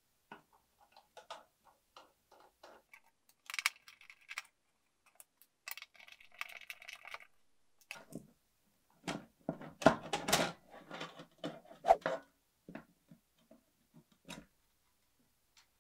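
A screwdriver undoing the screws of a computer power supply's sheet-metal case: small clicks and short scraping turns. Then, from about nine seconds in, louder knocks and clatter as the metal case is handled and opened.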